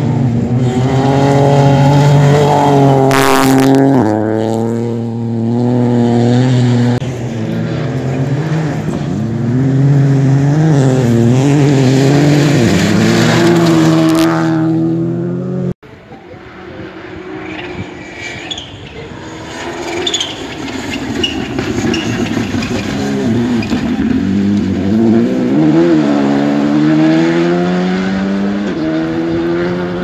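Rally car engines at hard throttle on a gravel stage, revs rising and falling repeatedly with gear changes and lifts. There is an abrupt cut about halfway through, after which a second car is heard approaching with its engine building up.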